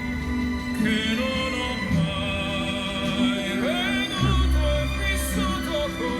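Music with a singing voice: held notes and a wavering vocal line with vibrato, in an operatic style.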